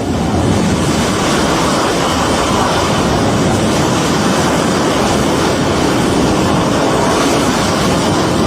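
A loud, steady rushing roar of tornado wind, with no distinct pitch, the freight-train-like sound of a tornado.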